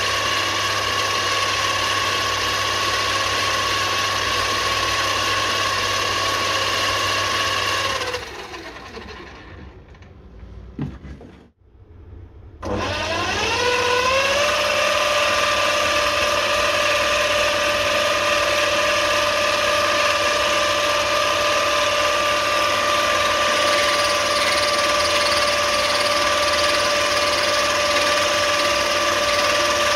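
Mini lathe running with a steady whine. About eight seconds in it winds down to a stop with a click. After a short gap it spins up again with a rising whine and settles into steady running.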